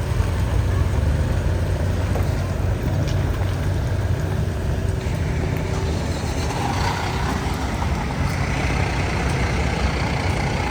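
Steady low rumble of a car's engine and road noise, heard from inside a vehicle moving in traffic, with a brighter hiss building in the second half.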